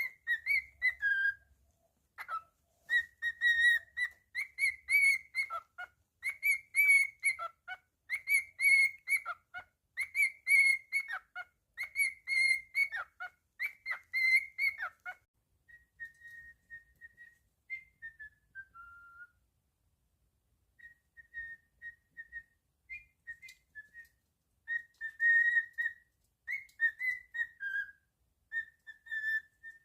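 Cockatiel whistling a tune, a quick run of repeated notes. About halfway through, after a short pause, it turns quieter, with sparser notes that slide downward.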